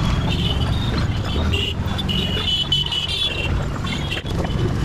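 Busy street traffic: a steady low rumble of motorbikes and other vehicles, with short high-pitched horn beeps scattered through the middle.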